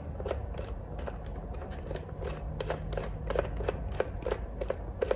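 Ratchet clicking in quick, uneven ticks as its handle is worked back and forth, loosening an oil filter band wrench.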